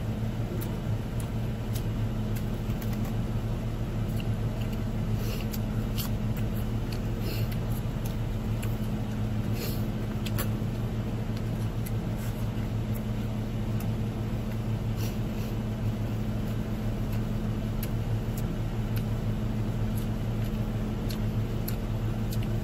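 Steady low hum of a car idling, heard from inside the closed cabin, with a few faint clicks over it.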